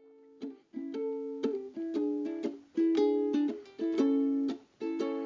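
Instrumental music: chords strummed on a plucked string instrument in a rhythmic pattern, opening a song.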